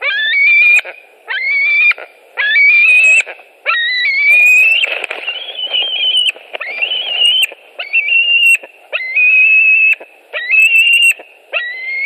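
Young white-tailed eagle begging for food with a loud, whistling call repeated about once a second. Each call sweeps up and holds a high, wavering note, with two calls running together near the middle.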